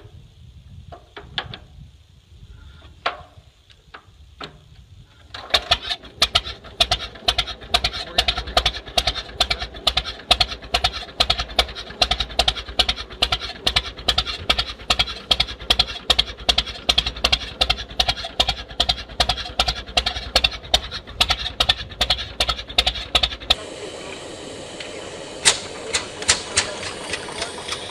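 McCormick-Deering steel-wheeled tractor engine being started: a few clanks while it is turned over by hand, then about five seconds in it catches and runs with an even, fast beat of exhaust strokes. Near the end a different vintage single-cylinder hot-bulb tractor is heard running, with a few sharp exhaust pops.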